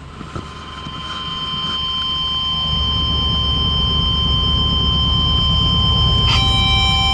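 A 1923 Ford T-bucket hot rod's engine running with a low rumble that builds over the first few seconds and then holds steady, as the car gets under way. Steady high tones sound over it from about a second in and change to a new, slightly falling set near the end.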